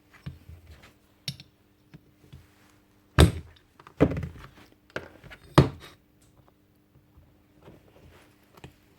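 Knocks and clatter of rotary-hammer parts being handled on a workbench: three loud thuds about three, four and five and a half seconds in, with lighter clicks between.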